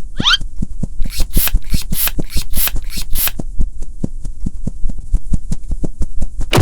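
Cartoon sound effects: a rapid, even clicking, several clicks a second, with a brief rising whistle at the start and a run of short hissy swishes in the middle.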